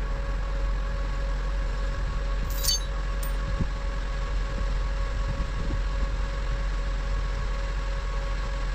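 John Deere 750L dozer's diesel engine idling steadily, with a low rumble and a steady hum. Two brief metallic clinks come a little under three seconds in and about half a second later.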